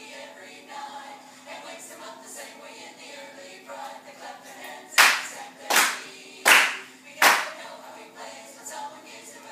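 Four sharp, loud hand claps in an even beat, about three-quarters of a second apart, starting about halfway through, over faint music with singing.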